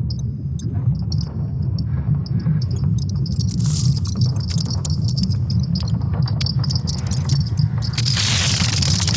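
A steady low hum with rapid high-pitched chirping pulses repeating over it, like an insect trill or electronic beeping; near the end a rushing noise like running water builds up.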